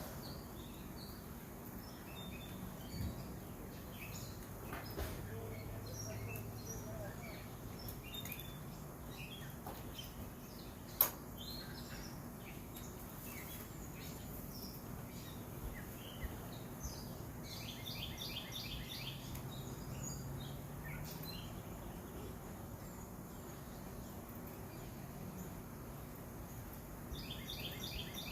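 Small birds chirping, with scattered short calls and a rapid run of repeated notes about two-thirds of the way through and again at the end. A single sharp click partway through is the loudest sound, over a low steady hum.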